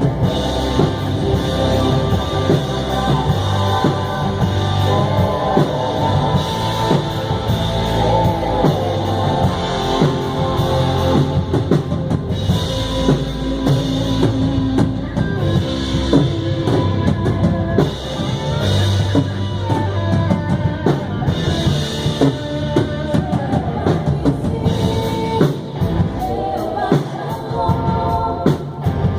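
A live band rehearsing a song: a drum kit keeping a steady beat under guitar and singing, playing without a break.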